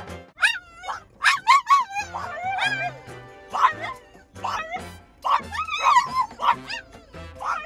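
French bulldogs howling and yowling in a string of wavering, high-pitched cries that bend up and down in pitch: a frustrated tantrum, with music underneath.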